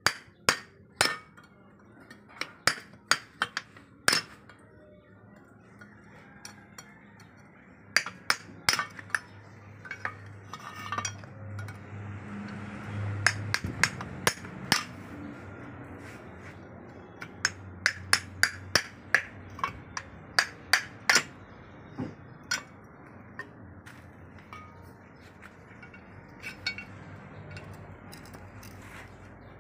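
Steel bar striking the bearing inside a hand tractor's pulley hub to drive it out: sharp, ringing metal-on-metal clinks in quick runs of several strikes, with pauses between the runs.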